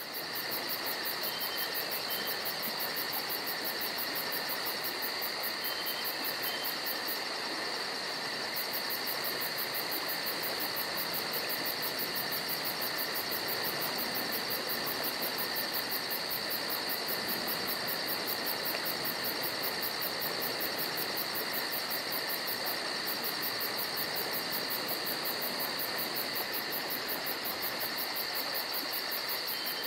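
Steady chorus of chirping insects, with a fast, even, high-pitched pulsing trill over a constant hiss.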